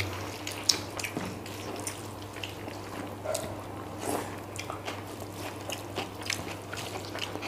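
Close-miked chewing and mouth smacks of people eating rice and chilli chicken by hand, as scattered irregular clicks over a low steady hum.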